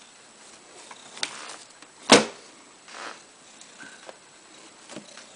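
A cat rummaging in an open drawer of plastic baskets and a plastic bag: light rustling and small clicks, with one sharp knock about two seconds in.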